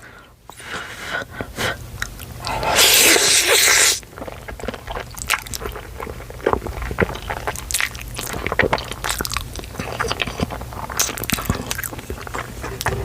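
Close-miked chewing of cheesy ramen noodles, with many wet mouth clicks and smacks. About two and a half seconds in, a loud slurp of noodles lasts about a second and a half.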